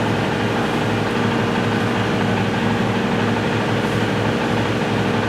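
Steady mechanical hum of a running motor-driven machine, even in level and pitch, with several constant low humming tones.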